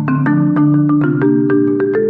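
Background music: a quick run of struck notes like a marimba or xylophone over held low notes.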